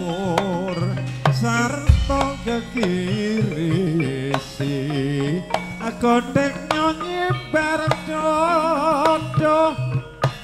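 Javanese gamelan music with sharp percussion strikes, a deep drum thump about two seconds in, and a voice singing a wavering melody over it.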